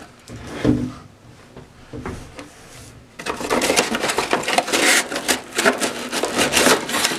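Packaging being handled: a few soft knocks in the first second or so, then from about three seconds in a steady crackly crinkling and rustling.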